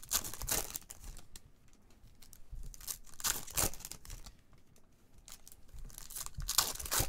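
Foil wrapper of a Panini Contenders basketball card pack being torn open and crinkled, in three bursts of rustling: near the start, about halfway through, and near the end.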